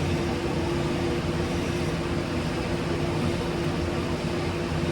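Steady background hum and hiss of a machine running, with one faint constant tone and no changes.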